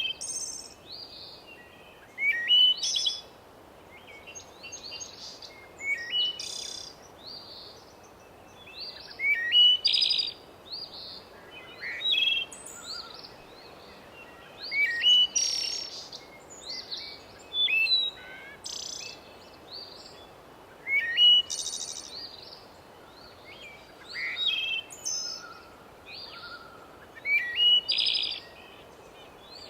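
Forest birdsong: a songbird repeats short, bright song phrases about every three seconds, each opening with a quick rising whistle, over a faint steady hiss.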